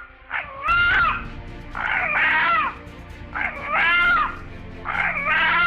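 A rooster giving a string of short, pitched calls, about five in a row and each just under a second long, heard by the narrator as the word 'Allah'. Background music plays underneath.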